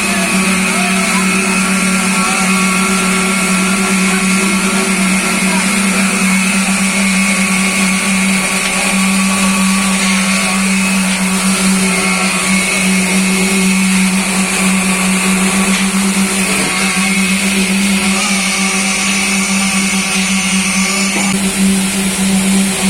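Concrete-pouring machinery running steadily: a loud, constant motor hum with a strong low tone that does not change.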